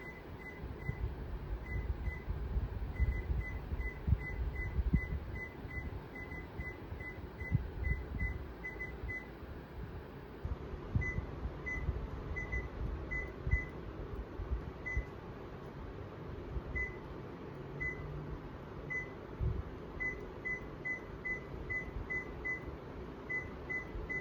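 Control-panel beeps of a Sharp ES-P110-SL drum washer-dryer as its buttons are pressed: short single beeps at one pitch in quick, irregular runs, sparse in the middle and bunched again near the end. Low rumble and knocks from handling run underneath.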